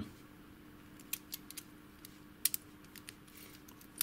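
Small, sharp metallic clicks and ticks of a thin bent wire being worked into a Thirard euro cylinder lock, a bypass attempt to catch and turn the cam without picking the pins. The clicks are scattered and irregular, the loudest about two and a half seconds in, over a faint steady hum.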